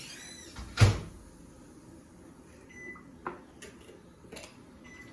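A single dull thump about a second in, followed by a few light taps and clicks and two faint short beeps.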